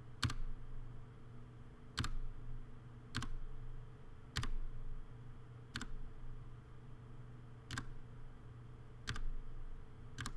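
Single key presses on a computer keyboard, about eight of them spaced a second or two apart, over a faint steady low hum.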